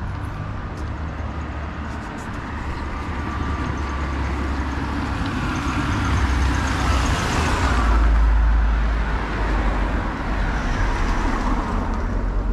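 A car drives past close by, engine and tyre noise swelling to its loudest about two-thirds of the way through and then easing off.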